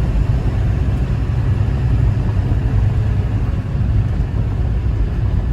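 Vehicle driving along the road: a steady low rumble of engine and road noise.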